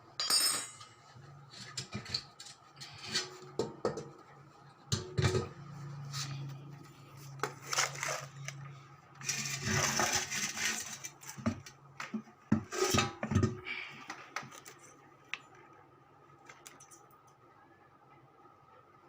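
Metal parts and tools clinking and knocking in irregular strokes over a faint steady low hum, with a longer scraping rattle about ten seconds in.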